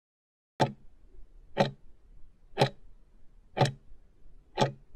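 Countdown-timer tick sound effect: five sharp ticks, one each second, marking the final seconds of a countdown as time runs out.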